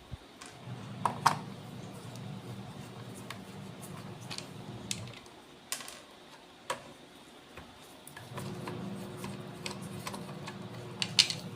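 Standard screwdriver unscrewing the case screws of a Fluke 8024A multimeter. There are two stretches of steady low noise from the turning, a few seconds each, with a few light clicks and taps between them.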